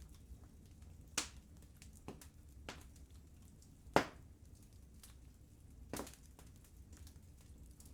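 Wood fire burning in a fireplace: irregular crackles and sharp pops over a low steady rumble, with about five clear pops, the loudest about four seconds in.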